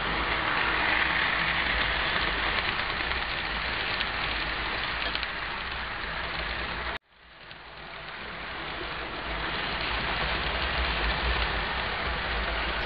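HO scale model train running past on the test track: the steady rolling clatter of wheels on rail with a low motor hum. It cuts off abruptly about seven seconds in, then comes back and grows louder.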